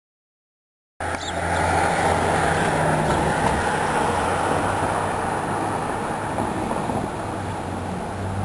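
Silence, then about a second in an outdoor rush of road traffic cuts in abruptly: a steady noisy wash with a low engine hum underneath, easing off slightly towards the end.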